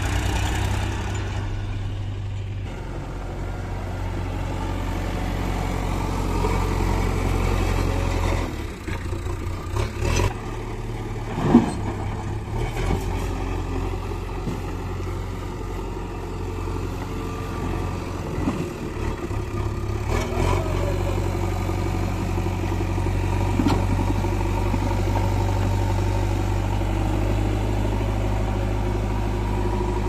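Diesel engines running steadily: first a farm tractor's, then a JCB 3DX backhoe loader's as it works. A sharp clank a little over a third of the way in is the loudest sound.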